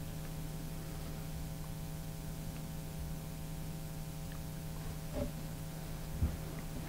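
Steady electrical hum: a low, even tone with fainter higher tones above it. A couple of faint soft knocks come near the end.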